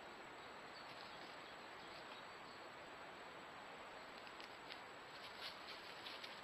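Near-silent steady hiss of a trail camera's microphone. In the second half come a few faint ticks and rustles as a red deer hind moves up close to the camera.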